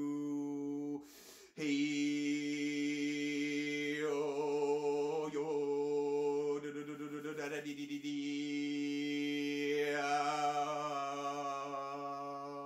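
A man's voice chanting wordless light-language tones on one steady low pitch, with long held notes whose vowel sounds shift. A short breath breaks the tone about a second in.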